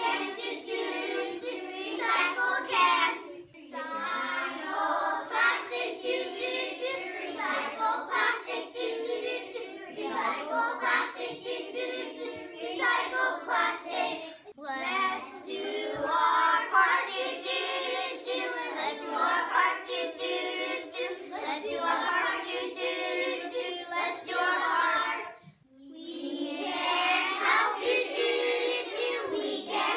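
Young children singing together, with a brief break near the end.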